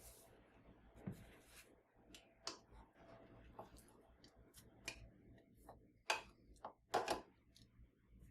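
Light, irregular clicks and knocks of household items being handled and set down, about one a second, with two sharper knocks near the end.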